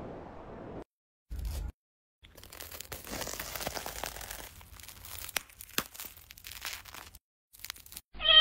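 Crackly crunching and crinkling of a toasted sandwich being pressed down, with sharp little cracks, for about five seconds. A cat's meow starts just at the end.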